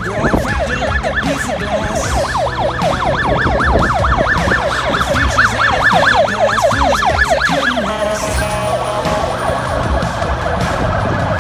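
Ambulance siren in a fast yelp, rising and falling about four times a second, changing to a steadier warbling tone about eight seconds in.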